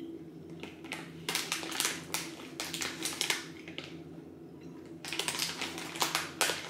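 Mouth sounds of someone chewing a soft gummy sweet: a run of short wet clicks. Near the end comes a denser crinkling as a hand goes into the plastic sweet packet.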